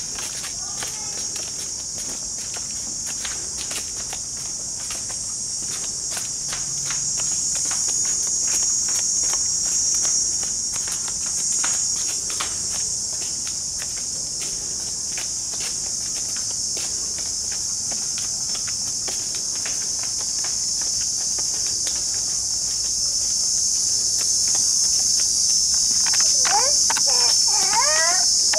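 Steady high-pitched insect chorus buzzing without a break, over light footsteps. Near the end a few short rising and falling calls join in.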